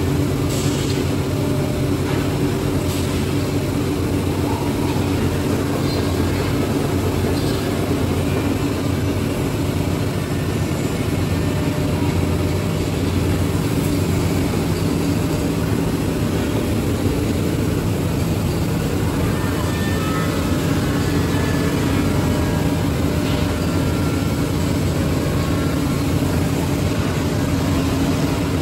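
Woodmaster Master-T4 five-axis CNC router running a job: a steady low machine hum as its spindle carves wooden chair seats and the head moves between the workpieces.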